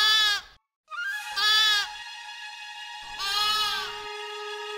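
Cartoon sheep bleating: three bleats, the first ending just after the start and the others about a second and a half apart, over background music.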